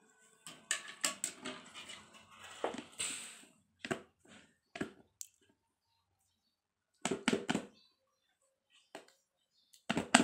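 Scissors cutting through the seal stickers on a cardboard phone box: a quick run of snips and scrapes over the first few seconds. Then single clicks and short bursts of scuffing as the box is handled and its lid worked loose, the last cluster near the end.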